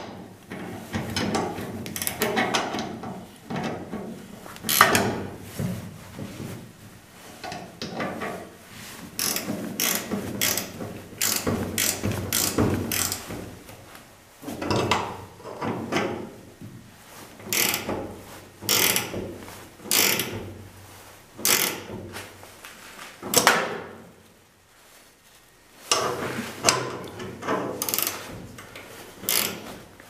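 Ratcheting box-end wrench clicking in runs of short strokes as it turns the screw of a hinge pin puller press, forcing a stiff door hinge pin out. There is a brief lull about three-quarters of the way through.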